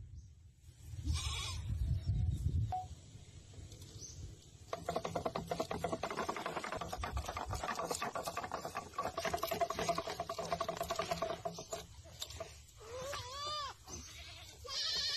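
Plastic fishing-line spool spinning fast on its stick axle as a hooked fish pulls line off it: a rapid rattling whir that starts about five seconds in and stops about twelve seconds in.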